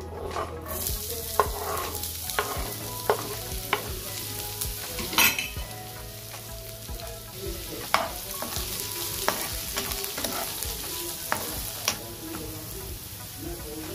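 Chopped red onion sizzling steadily in hot oil in a nonstick frying pan after being tipped in about a second in. A metal spatula stirs it, scraping and tapping against the pan.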